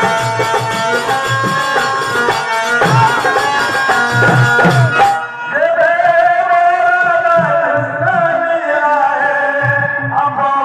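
Live traditional Indian theatre music: hand drums beating with bright high percussion on top, then about five seconds in the high percussion stops and a held melodic line of long sustained notes carries on over the drums.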